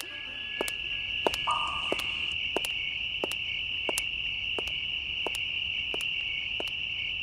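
Night insect chorus: a steady, high cricket trill, with scattered sharp clicks and a brief lower buzz about a second and a half in.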